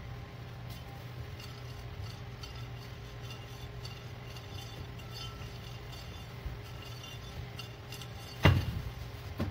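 Metal rolling pin rolling dough out on a stainless-steel counter, with light clicking as it rolls and one loud knock near the end as it strikes the steel; a steady low hum underneath.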